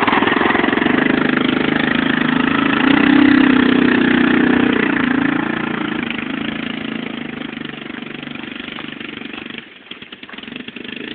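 ATV engine running as the four-wheeler drives past close by and away across the field. The engine is loudest a few seconds in, then fades steadily as it draws off, and the sound dips sharply near the end.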